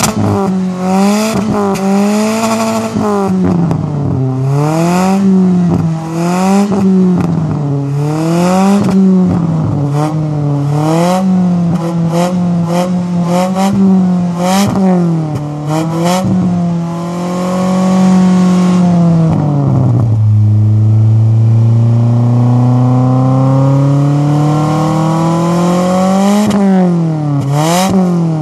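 Kia Carens II engine revved through a Remus aftermarket racing exhaust, heard at the tailpipe. It runs as a string of quick blips, each rising and falling, then a longer held rev that drops away and a slow, steady climb in revs, with a few more quick blips near the end.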